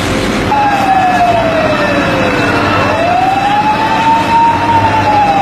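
Fire engine siren wailing: one slow tone that falls, rises and begins to fall again, over a steady noisy background.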